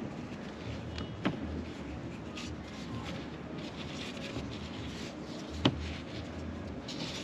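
Wooden rolling pin rolling oat dough on a plastic cutting board: a steady rubbing, with two sharp knocks, one about a second in and one past the middle.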